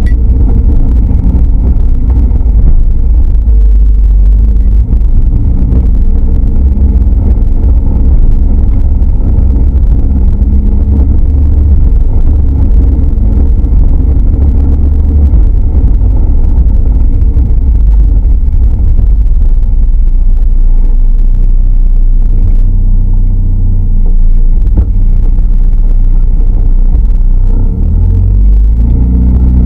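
Spec Miata's four-cylinder engine running hard on track, heard on board the car: a loud low drone whose pitch rises and falls with throttle and gear changes, dropping lower for several seconds before climbing again near the end.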